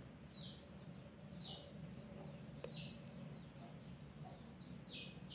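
Faint room tone with about four short high chirps, each dropping slightly in pitch and spaced about a second apart, typical of a small bird calling; a light click comes about midway.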